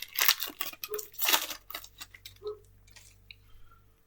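Foil wrapper of a Pokémon trading card booster pack crinkling as it is torn open, in several bursts over the first second and a half, then a few faint rustles.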